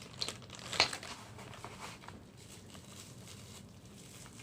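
Light handling noises from unboxing gadget accessories: a few small clicks and rustles, with one sharper plastic-like click a little under a second in.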